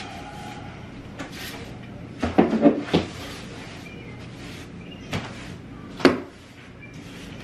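Sweeping with a broom, with a quick cluster of knocks about two seconds in and two single knocks near five and six seconds in as the broom bumps the door and the floor.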